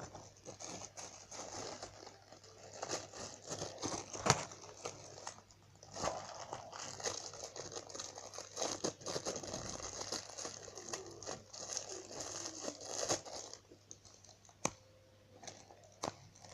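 Plastic packaging crinkling and tearing as a squishy is unwrapped and handled, a steady run of small crackles and clicks that dies down near the end, leaving a couple of sharp clicks.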